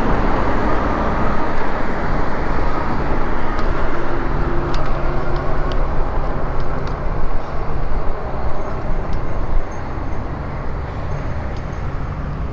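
Wind rushing over the camera microphone, mixed with tyre and road noise, while riding an e-bike along a road; it quietens somewhat about ten seconds in.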